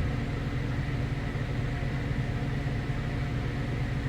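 Steady mechanical hum with a low drone and a faint high whine, unchanging throughout.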